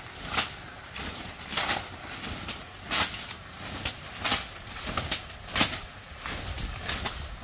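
A leafy branch being swung hard through the air again and again, each stroke a rustling swish, the strongest coming a little over a second apart: a man flailing it around his head to beat off a biting beetle.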